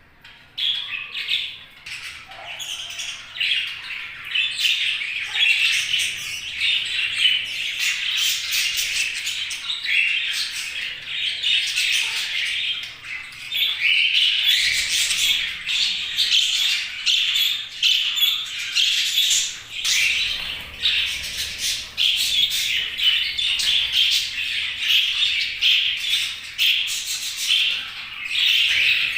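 Budgerigars chattering, chirping and squawking in a dense, continuous stream of overlapping high calls, starting about half a second in.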